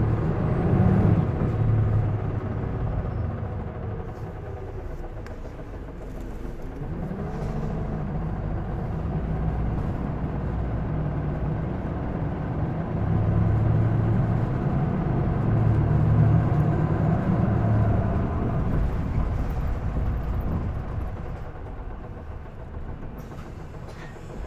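Isuzu Erga city bus's diesel engine heard from inside the cabin, pulling hard at high revs. The engine note rises and falls: it drops away a few seconds in, climbs again, is loudest past the middle, and eases off near the end. This is the bus the uploader says has developed an unusual noise.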